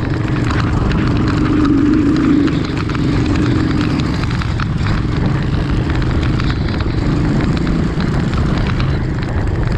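Off-road vehicle engine running steadily during a ride, with a dense rumble that swells about two seconds in.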